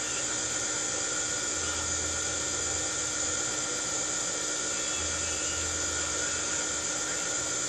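Steady whirring hum of a running electric motor, with a constant high whine and hiss that never pauses.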